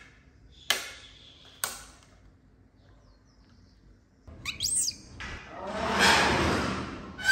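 A knife knocks sharply on a ceramic plate twice while a watermelon is sliced. About four seconds in, a baby monkey gives a quick high rising squeal and then a long, harsh cry that grows louder and peaks near the end.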